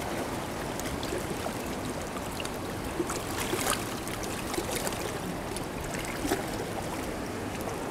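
Shallow river water running over rocks, with a few short splashes as a fish is let go into the current, about three seconds in and again near six seconds.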